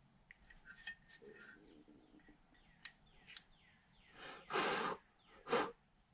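A cloth rag wiping and handling a metal carburetor: scattered light clicks and rustles, then two louder bursts of rushing, rubbing noise, a longer one about four and a half seconds in and a short one just after five and a half.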